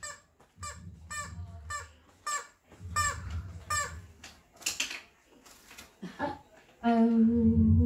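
A run of short, squawky, clucking cries, about two or three a second, voiced for a mischievous glove puppet as it goes off with the flowers. Near the end comes a long, loud, drawn-out "oh" of dismay.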